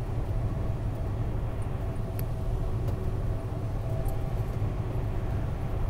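Steady low rumble of a vehicle driving along a wet, slushy highway, heard from inside the cabin: tyre and engine noise, with a few faint clicks.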